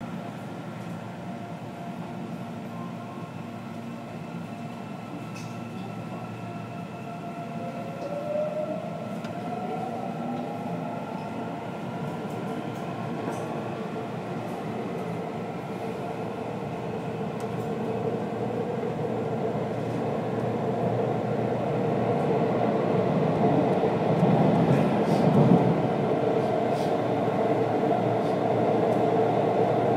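Shinbundang Line subway train running through a tunnel, heard from inside its last car: a steady rumble of wheels on rails that grows louder as the train gathers speed, with a rising whine about eight to twelve seconds in.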